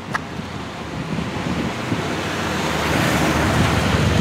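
Road traffic: an approaching vehicle's engine rumble and tyre noise growing steadily louder, with a single short click just after the start.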